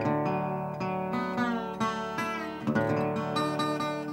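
Acoustic guitar playing a blues tune, picked notes and chords struck with sharp attacks one after another.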